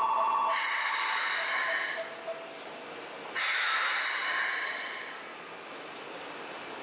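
Compressed air hissing from a Keikyu train's air system in bursts: a hiss that stops about two seconds in, then a sudden fresh burst about three and a half seconds in that dies away over a second or two.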